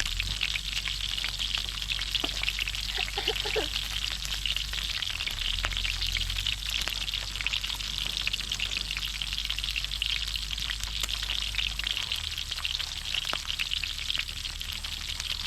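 Pork belly sizzling and crackling steadily in a hot pan, with a dense, even patter of fine spits.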